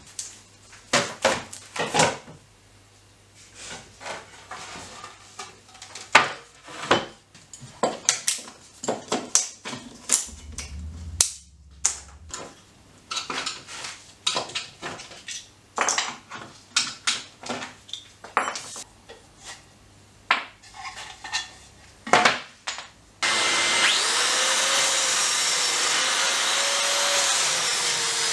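Irregular knocks and clatters of wooden boards and hand tools handled on a workbench. About 23 seconds in, a small handheld electric sander with a dust-extraction hose starts suddenly and runs steadily on a pine panel.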